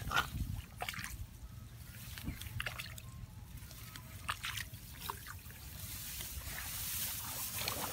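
Hands digging into a waterlogged crab hole in rice-field mud: irregular wet squelches, drips and small splashes of muddy water.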